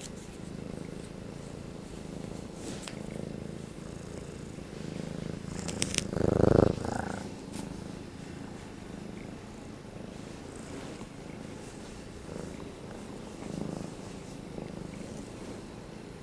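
Six-month-old gray tabby domestic shorthair kitten purring steadily while being petted. A brief loud thump about six seconds in.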